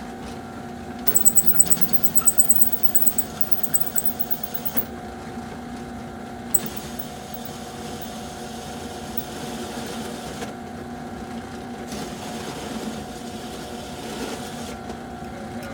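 Skil benchtop drill press running steadily while a metal-cutting hole saw bores a hole in a thin aluminium panel. Its teeth clog with the soft aluminium. A rapid run of sharp, high chirps comes between about one and four seconds in as the teeth bite, and one more at about six and a half seconds; the motor stops at the very end.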